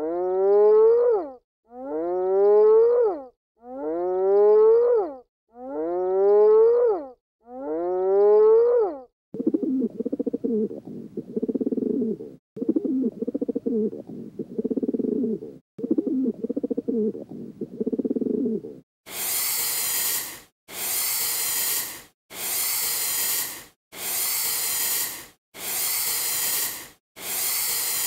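A run of animal sounds, each repeated at even spacing: five rising, pitched calls, then six rough, growling calls, then six harsh hisses.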